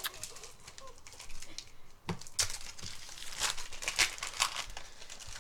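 Foil wrapper of a Yu-Gi-Oh! booster pack crinkling and tearing as it is opened by hand, in irregular sharp crackles that grow louder in the second half.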